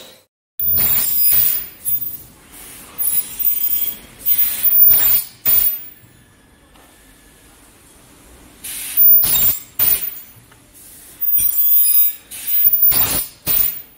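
Zinc die castings and broken-off gate scrap clinking and clattering as they are handled and dropped onto a pile, in irregular sharp bursts with a quieter stretch in the middle.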